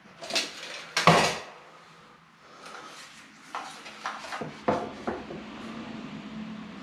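Hand tools clattering and knocking as they are handled and set down on a floor plank: a tape measure and a spirit level. A loud clack comes about a second in, followed later by several lighter knocks and taps.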